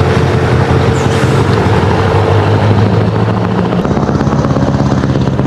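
Heavy truck engine running steadily with a rapid pulsing note that shifts about four seconds in.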